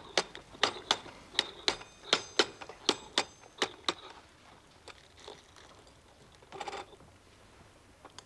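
A spoon tapping the shell of a soft-boiled egg in a silver egg cup to crack it: about a dozen light, sharp taps, roughly three a second, each with a faint metallic ring. The taps stop about four seconds in, and a brief soft rustle follows near the middle.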